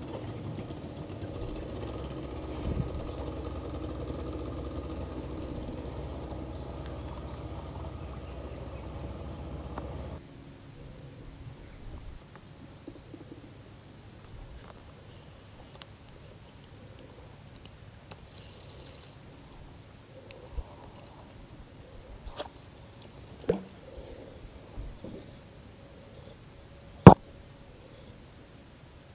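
Steady, high-pitched chorus of insects, louder from about a third of the way in, with a low hum beneath it that stops abruptly at that point. Near the end come a few light clicks and then one sharp knock, the loudest sound, as the fishing rod and spinning reel are handled.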